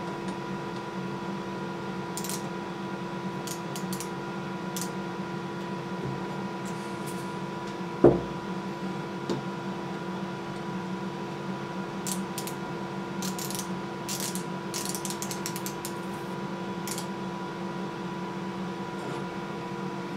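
Outside micrometer's ratchet thimble clicking in short runs as it is turned down onto a steel plate, over a steady background hum. A single dull knock about eight seconds in is the loudest sound.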